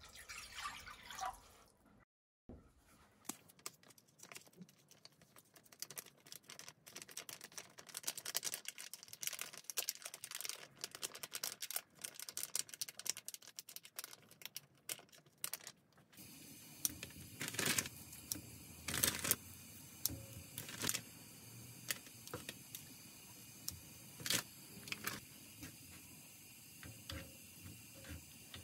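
Cooking at a gas stove, in several cuts: liquid poured from a plastic container into a wok, then a long run of small crackles and clicks as ingredients go in. In the last part a soup simmers with a steady hiss while a wooden spoon stirs it, with a few sharp knocks against the pan.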